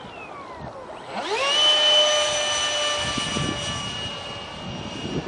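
Electric ducted fan of a 70mm EDF RC jet (Detrum 70mm combo on a 4-cell lipo) whining: the pitch falls in the first second, then the fan spools up sharply about a second in and holds a steady high whine.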